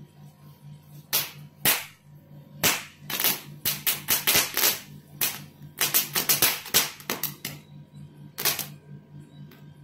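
Ground firework going off, with a rapid, irregular string of sharp pops and cracks in clusters for about seven seconds, the last pop standing alone near the end.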